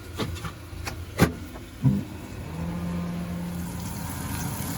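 A few clicks and knocks, then a thump about two seconds in, after which a microwave oven starts running with a steady hum.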